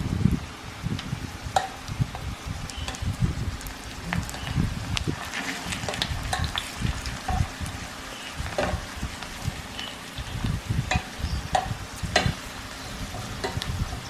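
Banana slices frying in a little oil in a nonstick pan, with tongs repeatedly clicking and scraping against the pan as the pieces are turned and lifted.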